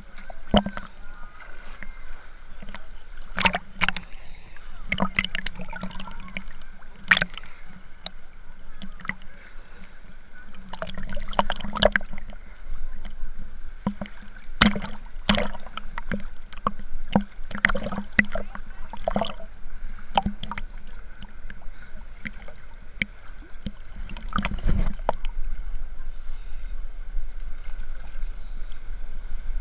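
River water sloshing and slapping against a waterproof action-camera housing held half-submerged at the surface. Irregular splashes and gurgles, several every few seconds, over the steady rush of the current.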